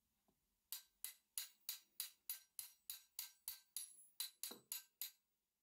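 A quick, even run of about fifteen sharp metallic clicks, roughly three a second, as metal parts of an old breast drill are worked against each other by hand. The clicks start under a second in and stop shortly before the end.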